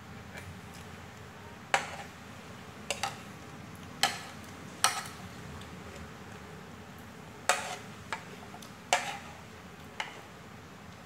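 Steel spoon and fork clinking and scraping against a plate while scooping up noodles: about nine sharp, irregular clinks, over a low steady hum.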